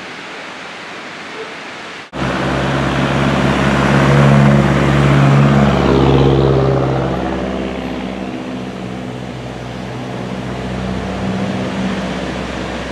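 A steady rushing hiss cuts off abruptly about two seconds in, and a motor vehicle is heard passing close by: engine hum and tyre noise swell over a few seconds, then slowly fade.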